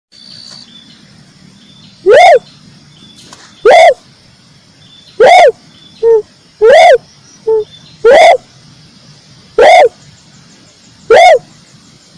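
Red turtle dove (red collared dove) calling: short, rough, rising-then-falling coos, each about a third of a second, repeated about every one and a half seconds, with a few shorter, softer notes slipped in between some of them. This is a loud bird-call recording of the kind played to lure the species.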